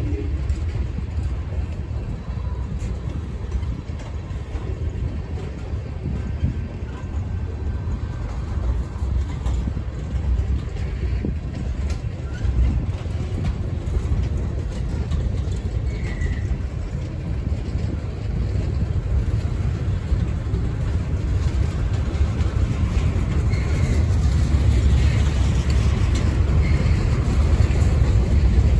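Freight cars of a long CSX train rolling past on the track: a steady low rumble and clatter of steel wheels on rail as tank cars, coil steel cars and gondolas go by, getting a little louder near the end.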